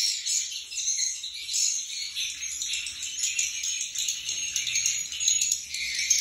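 Swiftlets twittering in a continuous chorus of high-pitched chirps inside a nesting house.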